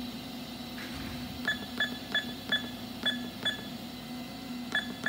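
Haas CNC control keypad beeping as keys are pressed: short, identical high beeps, six in quick succession and another near the end, each one a key press registering. A steady low hum runs underneath.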